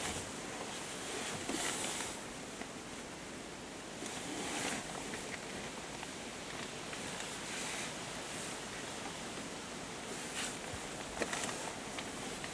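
Steady outdoor background noise, with a few brief soft hissy bursts.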